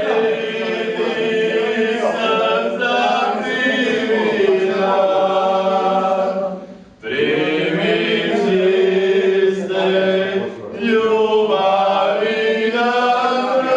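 A group of people singing together unaccompanied, with several voices holding long drawn-out notes. The singing breaks off for a breath about seven seconds in, then resumes.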